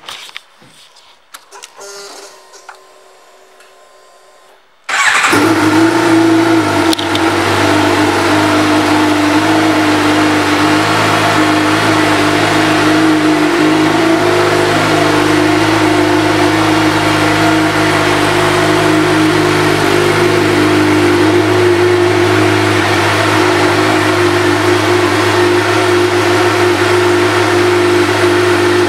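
Suzuki GSX-R750's inline four-cylinder engine, fitted with an aftermarket exhaust, starting suddenly about five seconds in after a few quiet clicks, then idling steadily.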